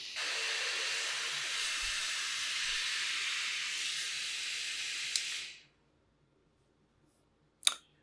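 Steady hiss of rushing air or steam, mostly high-pitched, that cuts off abruptly about five and a half seconds in; a short sharp click comes near the end.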